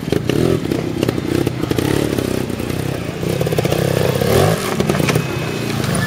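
Trials motorcycle engine close by, revving up and down in short blips as the bike works over rocks, with a sharp rise in revs a little past four seconds in.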